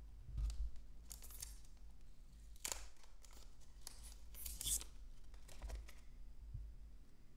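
Clear protective plastic film being peeled off a DJI Action 2 camera module, with light plastic handling: a few short, faint crackling peels and rustles, the clearest about two and a half and four and a half seconds in.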